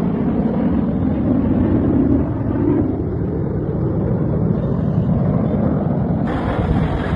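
Jet aircraft engine noise, a steady loud rumble from the Surya Kiran team's BAE Hawk jets flying the display.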